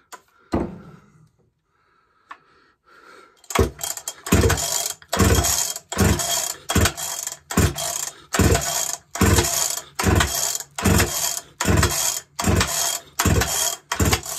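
Homelite Super XL-130 two-stroke chainsaw being pull-started with the ignition switched off: over a dozen quick rope pulls, just over one a second, starting about three and a half seconds in. Each pull turns the freshly rebuilt engine over against what is called stupid, crazy compression, and it does not fire.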